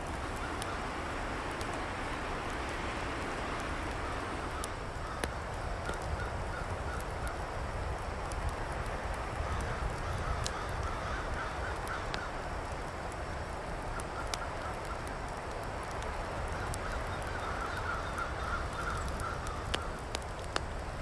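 A bird calling in several runs of quick repeated notes over a steady forest background, with small sharp crackles from the wood fire in the twig stove.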